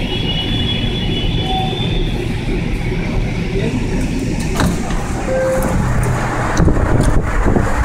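Light-rail train running, heard from inside the car: a steady rumble of wheels and running gear on the track. A thin high whine sounds for the first two seconds, and a few sharp clicks come about halfway through and again near the end.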